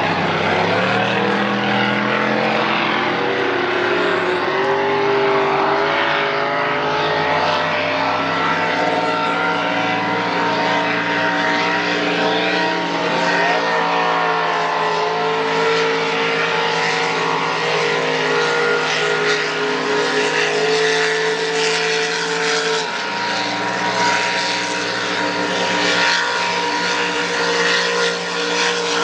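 Several high-powered racing powerboat engines running hard at once, a steady multi-toned engine drone whose pitches rise and fall a little as the boats run the course.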